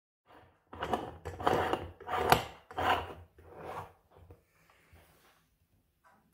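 Aluminium Bialetti Moka Express stovetop coffee maker being screwed shut: the upper chamber is twisted onto the threaded base in about five short turns, the metal threads rasping against each other, then only faint handling.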